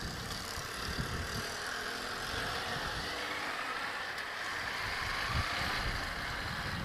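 Motorcycle engine running steadily as the bike is ridden at low speed, with road noise.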